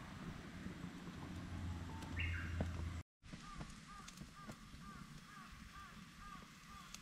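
Rustling handling noise from the sandwich maker's card package being held, then, after an abrupt cut about three seconds in, a bird calling over and over, about two short calls a second.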